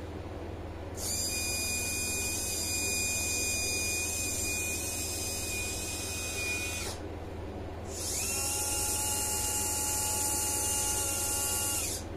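A small geared servo motor in an RC scale forklift's mast, running with a high steady whine while it drives the forks. It runs for about six seconds, stops for about a second, then runs again for about four seconds at a slightly different pitch.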